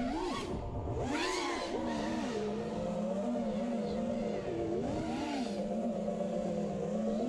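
The FPV quadcopter's four T-Motor F60 Pro II 2700KV brushless motors and 5-inch propellers whine, heard from the onboard camera. Their pitch rises and falls in quick swells as the throttle is punched and chopped, with the strongest rise about a second in.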